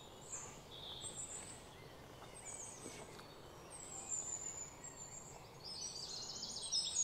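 Wild birds calling in woodland: scattered short high chirps and trills over a faint steady outdoor hiss, growing busier near the end.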